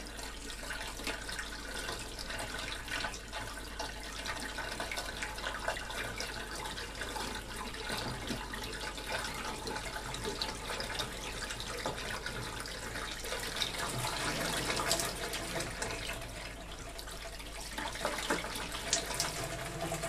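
Water pouring steadily from a plastic bucket into a front-loading washing machine's detergent drawer and running down into the drum, with a few sharper splashes near the end. This is about 8 litres being loaded into the drum for a bucket drain test.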